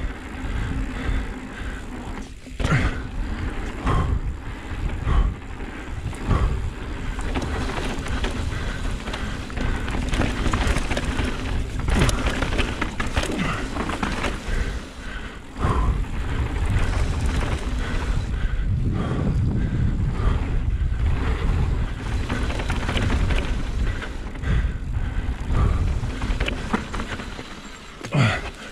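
Mountain bike riding down a dirt trail: tyres rolling over ground and rocks, with a continuous low rumble and the bike knocking and rattling over frequent bumps.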